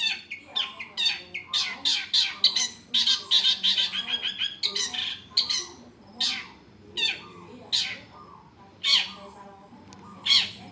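Long-tailed shrike (cendet) calling: a fast run of short, sharp calls for the first few seconds, then single calls about a second apart.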